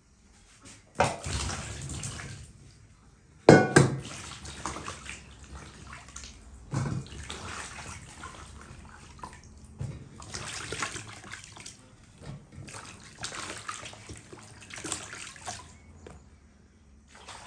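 Mandarins being washed by hand in a large metal basin of water: irregular splashing and sloshing as the fruit is scrubbed and lifted out. About three and a half seconds in, a sharp knock with a brief ring, the loudest sound, as against the metal basin.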